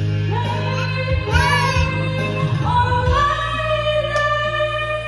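A karaoke song playing on a home videoke machine, with a voice singing the melody along with the backing track.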